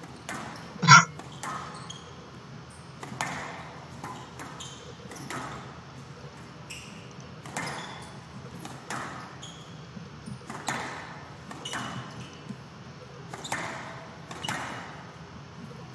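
Squash rally: the ball struck by the rackets and smacking off the court walls, a sharp crack with a short ring every second or so, in a big hall. A louder, sharper sound stands out about a second in.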